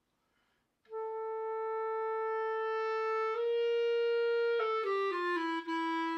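Clarinet playing a slow phrase. About a second in it holds a long note, steps up to a louder peak note, then falls away in shorter descending notes that fade: a phrase shaped as growth, a late high point and a fade.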